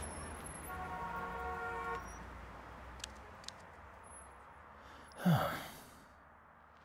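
Distant city traffic rumble, fading, with a car horn held for about a second near the start. Two small clicks follow, then a short, breathy whoosh with a falling low tone near the end, which is the loudest sound.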